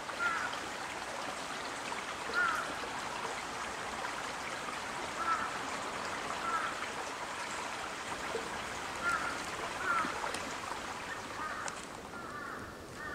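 Water trickling steadily along a shallow stone gutter, with a bird giving short calls every second or two.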